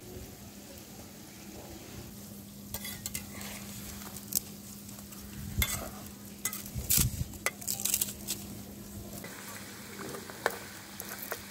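Mini samosas deep-frying in hot oil in an iron karahi, a steady sizzle. A metal spatula clinks and scrapes against the pan as they are turned, mostly from about three to eight seconds in, with a few more clinks near the end.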